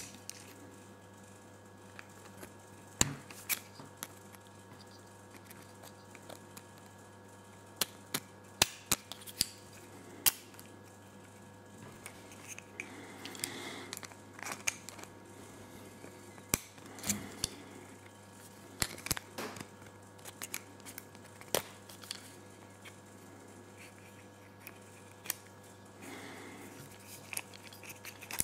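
Irregular small sharp clicks and light scraping as a small screwdriver and the metal internals are worked against the plastic body of a Campagnolo bicycle shifter being taken apart by hand, with brief spells of handling rustle.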